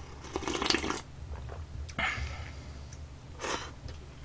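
A person slurping budae jjigae broth from a bowl, in three short noisy slurps: about a second in, at about two seconds, and near the end.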